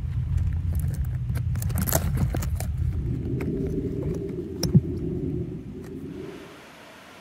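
Wire-bail glass jar clinking and clicking against wood as it is lifted out of a hollow log, over a steady low rumble. There is a sharp knock a little past the middle, then the rumble fades away to a faint hiss near the end.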